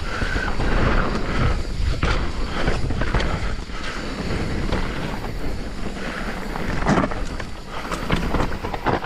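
Mountain bike riding down a rough trail, heard from a chest-mounted camera: tyres rolling over dirt and rock with constant rattling and clatter from the bike, and wind noise on the microphone.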